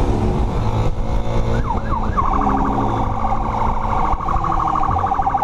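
Police motorcycle siren switched on about a second and a half in: a couple of quick rising and falling wails, then a rapid warbling yelp, over the motorcycle's engine running.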